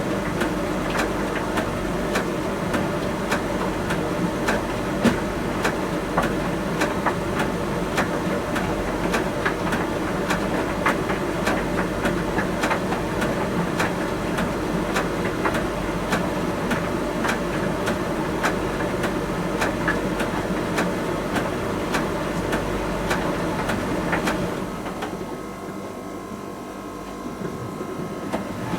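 Miele T1 heat pump tumble dryer running, its drum turning with the laundry clicking and knocking about twice a second. About 24 seconds in, the tumbling stops and a quieter, steady hum with a few tones remains, as if the drum is pausing before it reverses.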